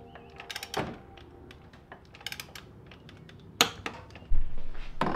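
Torque wrench ratcheting in short runs of clicks as the pitch stop's rear bolt is torqued down, with one sharper click about three and a half seconds in. Dull handling noise near the end.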